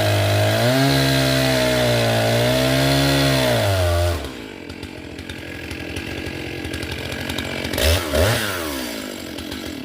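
Chainsaw cutting a large pine at full throttle, its engine pitch wavering as the bar loads and frees in the wood. About four seconds in it drops to a quieter, rougher running sound, with a brief louder swell near the end.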